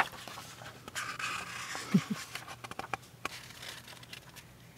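Pages of a paperback picture book being turned and handled close to the microphone: paper rustling and light clicks, with a sharp tap at the very start.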